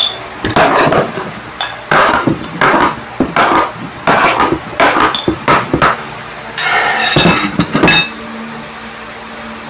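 A metal utensil knocking and scraping against a hard object at a table: about a dozen sharp strokes, ending in a quick run of clinks with a ringing metallic tone near the end.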